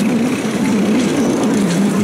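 Tractor engine running steadily, its pitch wavering slightly up and down.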